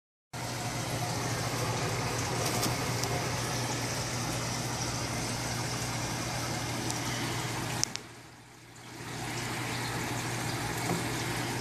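Steady hiss with a low hum, dipping for about a second around eight seconds in, then returning.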